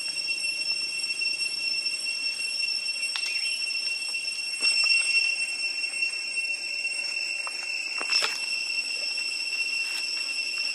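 Steady high-pitched insect drone, with a few brief clicks or rustles, the loudest about eight seconds in.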